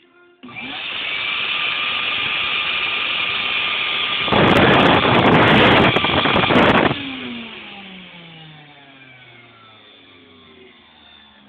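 An electric sanding tool is switched on and spins up to a steady run. It gets louder for about two and a half seconds in the middle, as if pressed to work, then is switched off and winds down with a falling whine.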